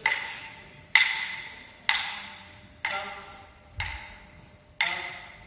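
Wooden clapsticks struck together in a steady beat, about one strike a second, six strikes in all. Each strike rings briefly and fades in the echo of the hall.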